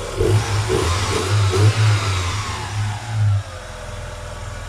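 Great Wall Hover 3 engine revved up and then falling back to idle, the revs dropping to a steady idle about three and a half seconds in. It runs evenly, its jumped timing belt now reset to the correct marks.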